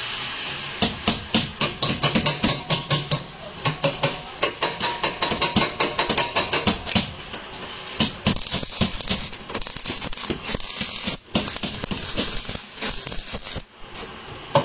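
A rapid series of sharp taps or knocks, a few a second for several seconds, then sparser and irregular.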